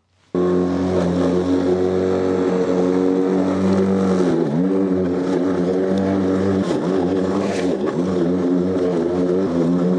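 Toro battery lawnmower's motor and spinning blade humming steadily as it is pushed through long, thick grass. The pitch sags briefly twice, about four and a half and eight seconds in, as the blade slows under the load and picks up again.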